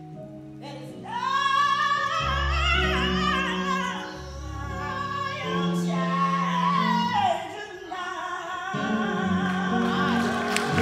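A woman singing a slow solo with long held notes and vibrato over instrumental accompaniment. Her voice comes in about a second in, over notes that are already playing.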